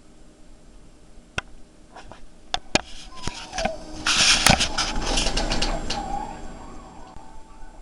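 Jack Russell Terrier making soft whining, cooing noises with short falling pitch glides. There are a few sharp clicks early, then a loud scratchy rustle through the middle.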